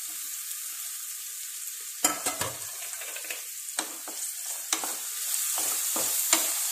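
Chopped onions sizzling in hot oil in a frying pan. From about two seconds in, a wooden spatula knocks and scrapes against the pan as the onions are stirred.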